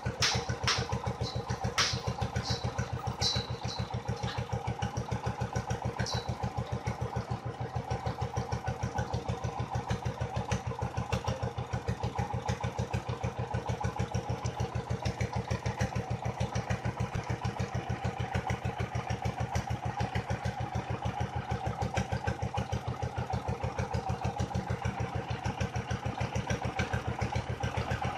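Small engine of a well-boring rig's water pump running steadily with a rapid, even chugging beat, circulating water down the bore. A few sharp metallic clinks come in the first several seconds.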